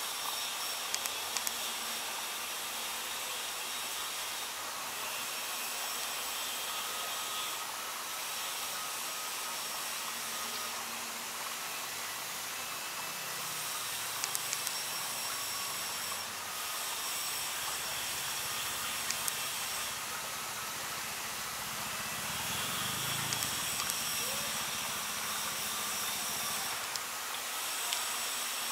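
Steady outdoor ambient hiss in a garden, with faint high steady tones that come and go and a few soft clicks.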